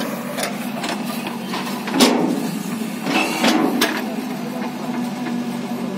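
JCB backhoe loader's diesel engine running steadily under load, with a series of sharp knocks and clanks as its bucket works the soil. The loudest knock comes about two seconds in, and more follow around three to four seconds.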